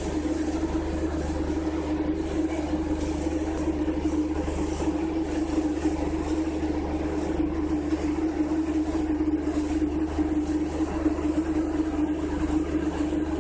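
Ferry's engines running steadily under way: a constant hum holding one pitch, with a deep rumble beneath it.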